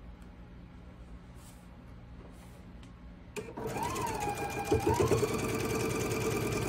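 Electric sewing machine starting with a click a little over halfway through, then running steadily as it stitches a seam through pinned quilt fabric. Its motor whine shifts in pitch as the speed changes, then holds steady.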